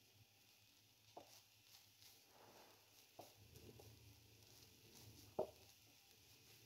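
Near silence, with a few faint clicks and scrapes of a silicone spatula stirring shredded chicken in a non-stick frying pan; the loudest click comes about five and a half seconds in.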